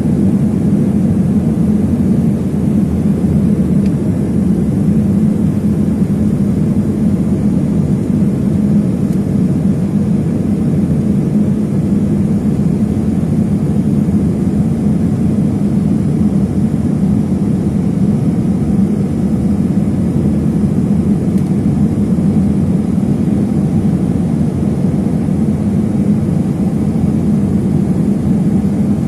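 Cabin noise inside an Embraer ERJ-145LR regional jet on approach: the rear-mounted Rolls-Royce AE 3007 turbofans and the airflow make a steady, low, even rumble with no change in pitch.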